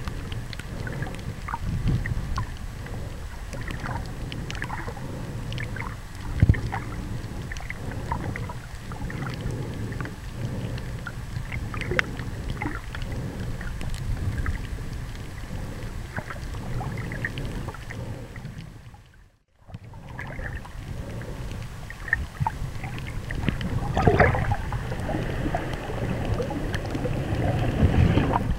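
Muffled underwater water noise picked up through a point-and-shoot camera sealed in a soft plastic underwater bag: a steady low rumble and slosh with many scattered short clicks and crackles. The sound drops out briefly about two-thirds of the way through, then grows louder near the end.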